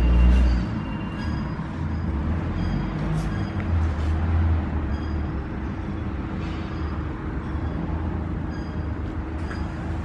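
Machinery running with a steady low hum and rumble that carries a constant tone, with a few faint clicks.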